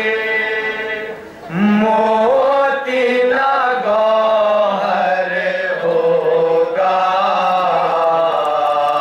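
Male noha reciter chanting a Shia mourning lament into a microphone, without instruments. He holds long sung notes, breaks off for breath about a second and a half in, then starts a new line that rises and falls in pitch.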